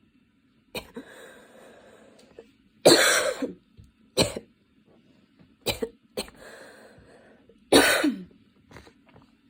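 A girl coughing hard in a prolonged coughing fit: about seven harsh coughs, the loudest about three seconds in and near the end, with long breaths drawn between them.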